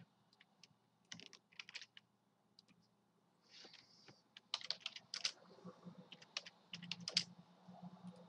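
Computer keyboard keys typed in short bursts of quick, faint clicks.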